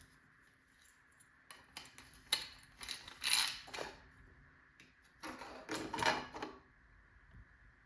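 Small metal parts clicking and scraping together in a few short bursts as a bicycle headset's sealed bearings and parts are fitted back into the frame.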